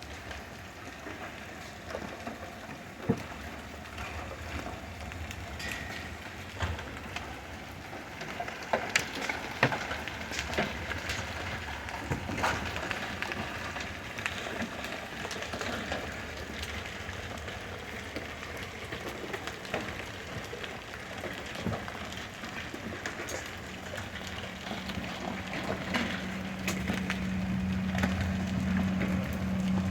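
Hailstones and rain pelting down, with many scattered sharp clicks and knocks of hail striking hard surfaces. A steady low hum comes in past the middle and grows louder toward the end.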